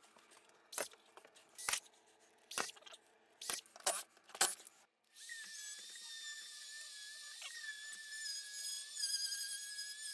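A few sharp knocks, then about five seconds in a Rotozip SS355-10 spiral saw starts up and runs with a steady high whine as it cuts through the ceiling drywall.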